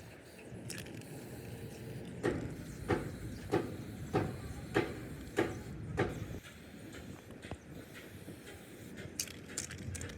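Seven evenly spaced hammer blows on metal, about one every 0.6 s, each with a short ring, then a few lighter clicks near the end.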